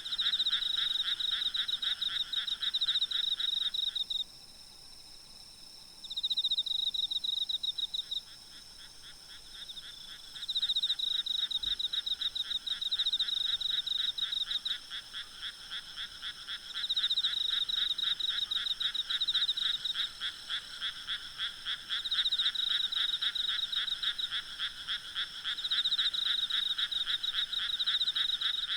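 A chorus of frogs calling in rapid pulsed croaks that come in overlapping bouts, dropping away briefly twice in the first ten seconds, over insects trilling steadily at a high pitch.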